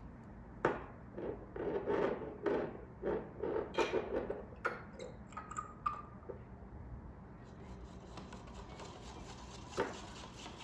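A quick series of light knocks and scraping rubs from objects being handled and set down, then quieter with one more knock near the end.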